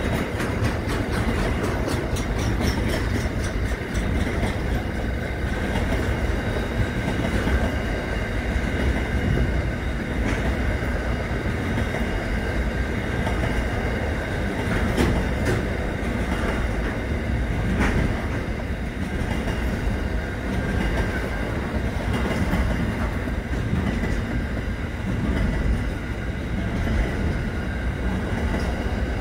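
Intermodal freight train's container wagons rolling past: a steady rumble of steel wheels on rail, with occasional sharp clicks as the wheels cross rail joints and a faint steady high whine above the rumble.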